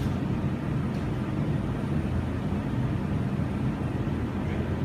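Steady low rumbling background noise with no speech, nothing standing out or changing.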